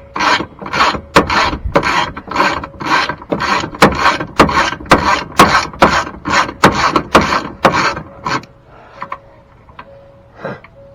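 Hand ratchet with a T20 Torx bit being worked back and forth to back out a screw, a rasping click on each stroke about two and a half times a second. It stops about eight and a half seconds in, followed by a few faint clicks.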